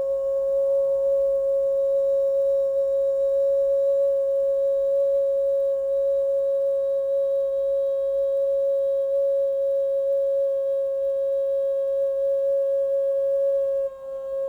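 Singing bowl held in one long, steady, almost pure tone with faint higher overtones, dipping briefly near the end.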